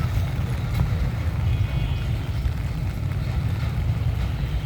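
Freight train rolling past with a steady low rumble.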